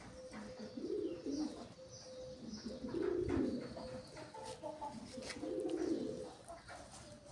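Dove cooing: three low coo phrases, about two and a half seconds apart.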